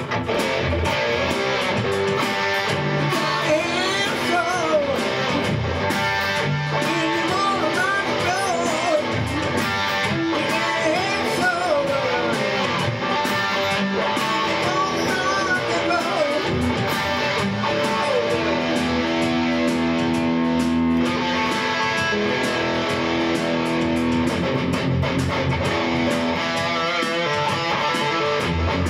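Rock music: an electric guitar plays a lead with bent, wavering notes over strummed guitar and a steady backing, the bends mostly in the first half.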